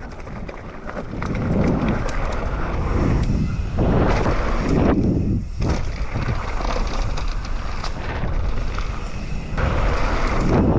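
Wind buffeting the microphone on a fast mountain-bike run, with trail noise and the bike clicking and knocking over rough ground. It builds up about a second in.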